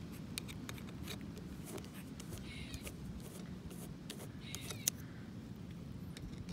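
Faint small metallic clicks and scrapes of a flathead screwdriver working the steel screw of a bronze grounding-rod clamp. A squirrel calls briefly in the background twice, about two and a half and four and a half seconds in.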